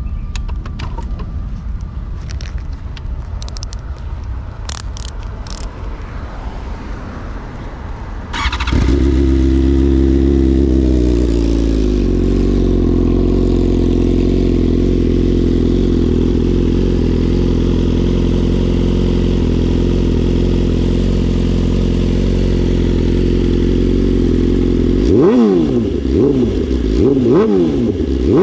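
BMW S1000RR inline-four through an Akrapovic full exhaust starts suddenly about a third of the way in. It settles from a higher idle into a steady idle, then near the end it is blipped several times, the revs rising and falling sharply.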